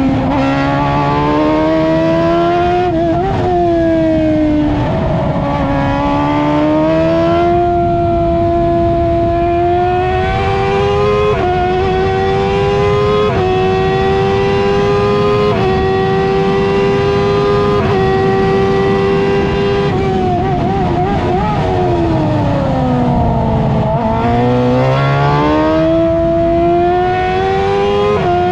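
Onboard sound of an F1000 open-wheel race car's 1000 cc motorcycle-derived engine at racing speed, heard over wind and road noise. The engine note climbs in steps through the gears, falls steadily for a few seconds about three-quarters of the way through, then climbs again.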